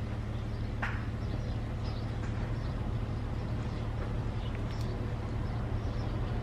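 A steady low hum, with faint short bird chirps over it and one brief sharper sound about a second in.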